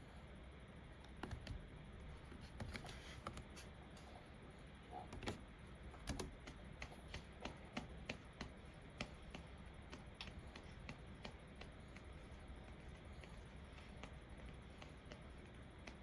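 Quiet typing on a computer keyboard: soft, irregular keystroke clicks, closer together in the first ten seconds or so, then sparse.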